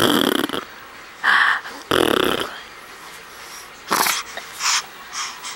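A run of sneezes: three strong ones in the first two and a half seconds, then a few shorter, weaker ones.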